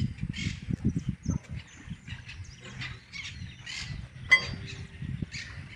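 A stainless-steel tubular chime is struck once, about four seconds in, and rings on with several tones at once. Wind rumbles on the microphone in the first second or so.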